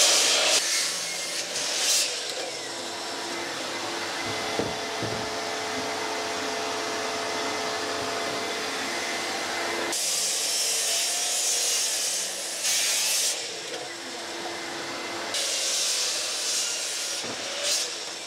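Bosch sliding mitre saw crosscutting maple and walnut boards. A cut ends just after the start, another runs for about three seconds from ten seconds in, and a third comes near the end. A steady mechanical hum carries on between the cuts.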